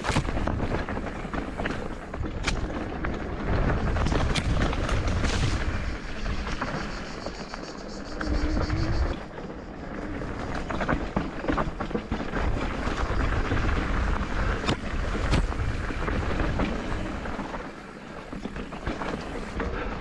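Mountain bike clattering down a rocky technical trail, its tyres and frame rattling over stones, with a heavy low rumble and frequent sharp knocks.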